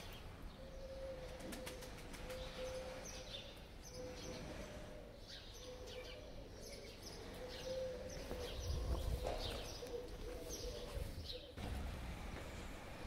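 Small birds chirping, many short falling calls repeated throughout, over a steady low hum; a low rumble swells briefly past the middle.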